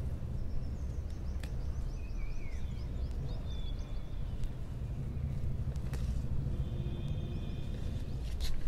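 Amaranth stems being pinched off by hand, with a few faint snaps, over a steady low rumble.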